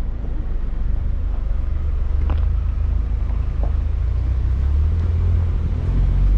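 Mini Cooper Countryman All4 driving off road: a steady low rumble of engine and tyres on a rough track, with a couple of faint knocks.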